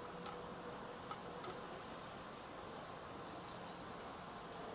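Insects trilling steadily at a high, unchanging pitch, with a few faint clicks in the first second or so.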